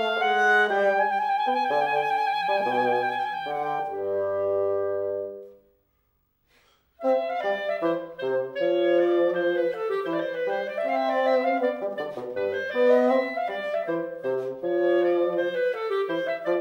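Clarinet and bassoon playing a classical duo together, the clarinet carrying the melody over the bassoon's lower line. About five seconds in they hold a chord over a low bassoon note, break off into about a second of silence, and then start playing again.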